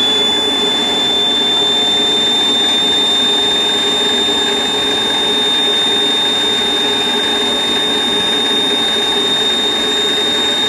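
Small gas turbine in a model GT3 locomotive running on fuel during its start-up, a steady high-pitched whine over a loud rushing noise.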